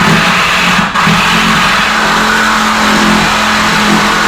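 A power cutting tool cutting through a steel body bolt: a steady motor whine over a harsh metal-cutting noise, broken off briefly about a second in.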